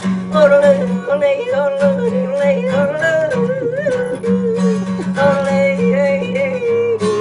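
An elderly woman yodeling, her voice flipping quickly between pitches, over steady acoustic guitar accompaniment.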